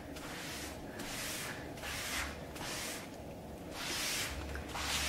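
Kitchen sponge rubbing wood stain into a wooden board along the grain, in repeated hissing strokes of about one a second.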